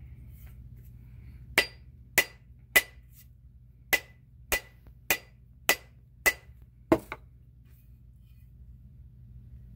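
Rubber mallet striking a wooden hatchet handle while a half hatchet head is fitted onto it: nine sharp knocks about 0.6 s apart, with a short pause after the third, each with a brief ring.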